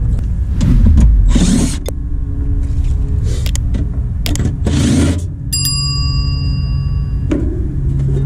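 Milwaukee M12 cordless impact driver whirring in several short runs as it backs out the screws of an air-conditioner condenser's access panel, over a steady low hum. A bell-like chime of several clear tones rings out about halfway through.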